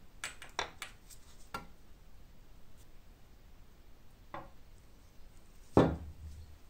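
Steel scythe blade being handled: a few light clinks and knocks as it is picked up, then a sharp knock with a short low ring near the end as it is laid down on the wooden table.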